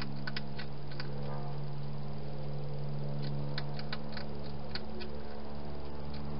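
Hedgehog eating from a bowl inside a plastic feeding box: irregular sharp clicks and crunches in small clusters, over a steady low hum.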